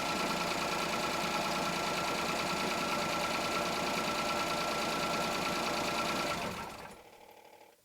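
Small 1-litre petrol car engine running steadily, then switched off about six seconds in and quickly running down.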